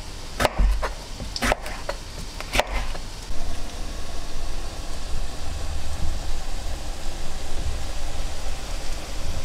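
Kitchen knife slicing a red bell pepper on a plastic cutting board: three sharp knocks of the blade against the board, about a second apart, in the first three seconds. After that comes a steady low rumble.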